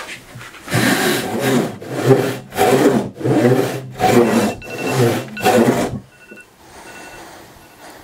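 Frame saw with a 4-foot blade of 3 1/3 teeth per inch resawing a spruce board by hand: coarse rasping strokes at about two a second, stopping about six seconds in.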